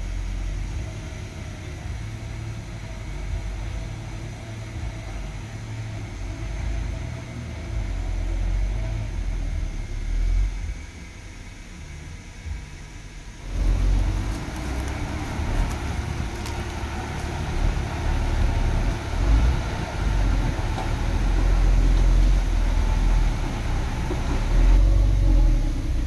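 Heavy diesel earthmoving machinery running with a deep, steady rumble. About halfway through, the sound abruptly becomes louder and rougher.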